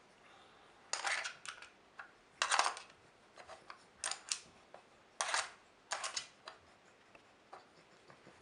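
Hard plastic lids and cones of a Trixie dog strategy puzzle board clattering as a dog noses and paws at them: a string of short knocks and rattles, fewer near the end.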